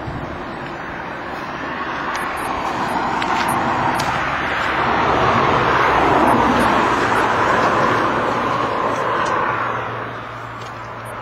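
A car driving past on the road: its tyre and engine noise swells to a peak about halfway through and then fades away.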